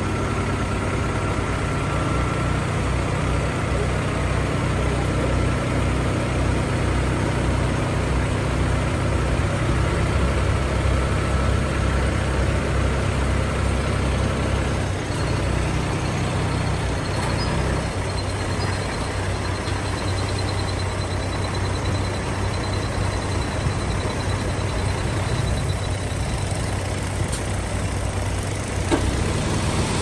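Heavy diesel engine of earthmoving equipment running steadily, its low note changing about two-thirds of the way through.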